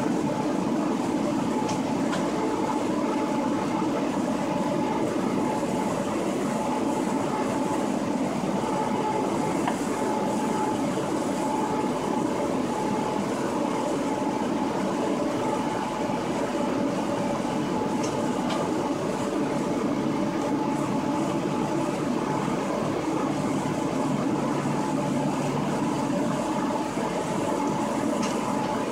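Cab of a DB Class 143 electric locomotive running at speed: a steady rumble of wheels on rail with a steady whine from the locomotive and a few faint ticks.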